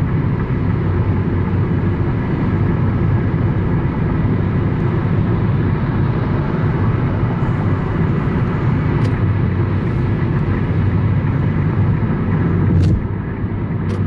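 Steady cabin noise of a car cruising at freeway speed: a low rumble of tyres and engine, with a few faint clicks near the end.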